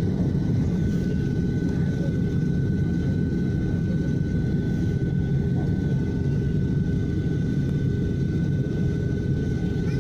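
Airliner's turbofan jet engines heard from inside the cabin: a steady low rumble with a thin, even whine above it, holding at one level while the aircraft taxis along the runway.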